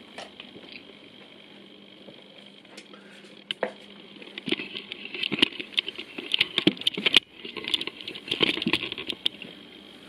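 A run of irregular light clicks and crackles, starting about four and a half seconds in and stopping shortly before the end, from handling close to the microphone as the camera is moved.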